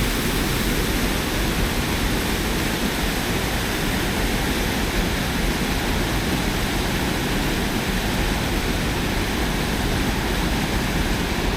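Steady rush of high, fast river water churning through white water below a dam.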